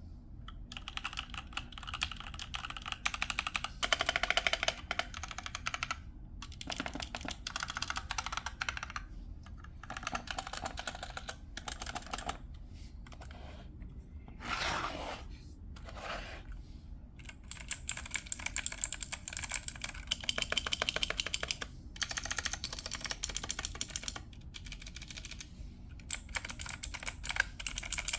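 Typing on a mechanical keyboard, comparing blue (clicky) and red (linear) key switches: bursts of rapid keystrokes a few seconds long with short pauses between them. A brief noise swells and fades about halfway through.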